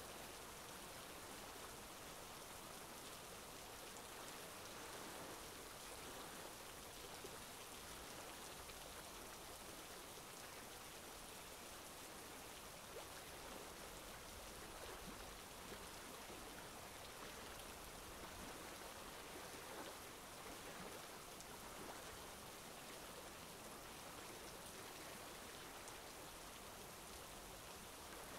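Faint, even hiss that holds steady throughout, with no distinct events.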